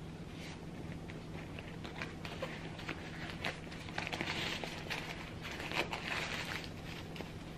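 Black Re-Nylon bucket bag being handled: the nylon fabric rustles and crinkles in irregular bursts, with small handling clicks as the drawstring cord and handle are moved, busiest about four to six seconds in.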